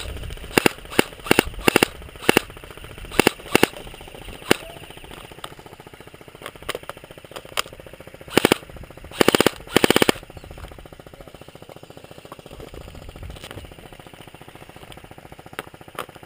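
Airsoft guns firing: a string of single shots in the first few seconds, then three short full-auto bursts about eight to ten seconds in, with a few faint scattered shots later.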